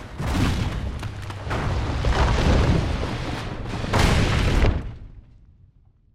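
Film sound effects of a deep, loud rumbling crash with repeated booms, like rock breaking and falling. It builds to its loudest hit about four seconds in, then fades away quickly.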